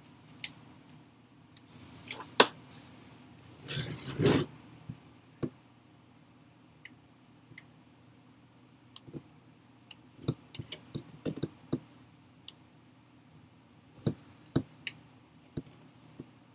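Scattered light clicks and taps from handling a laptop's parts during a screen swap, with a short scraping rustle about four seconds in and a quick run of clicks a little later.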